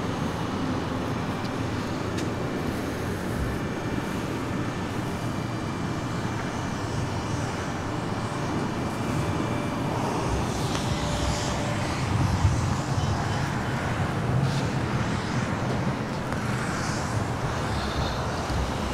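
Steady outdoor vehicle rumble with an even hiss and no distinct events.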